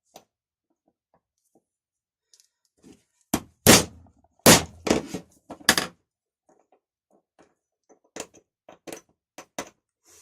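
Hammer blows on a punch, driving out the pin that holds the ratchet on a Ural chainsaw's starter. A close cluster of four or five heavy strikes comes around the middle, then four lighter taps near the end. The pin is stuck and will not come out, its end already flattened by the blows.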